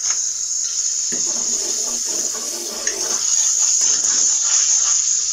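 Spiced onion-tomato masala sizzling steadily in hot ghee in an aluminium karahi, stirred with a metal ladle.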